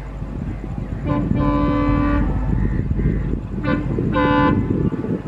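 Electric locomotive's horn sounding as the train approaches at speed: a short toot then a longer blast, given twice, over the low rumble of the running train.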